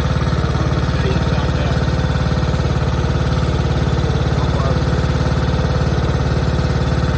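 Riding lawnmower engine running at a steady speed, with a fast, even low pulsing.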